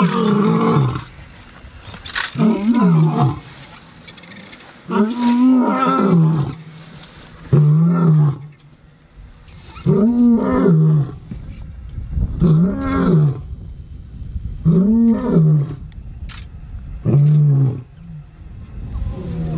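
Male lion roaring in a bout of about eight deep calls, each about a second long and rising then falling in pitch, spaced roughly two and a half seconds apart, with the last ones shorter. The roaring belongs to a challenge between rival males.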